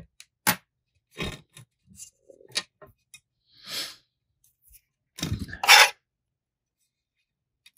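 Scattered small clicks, taps and rustles from hands working the thread of a fishing-rod wrap at the bench, with a louder rustle-scrape about five seconds in.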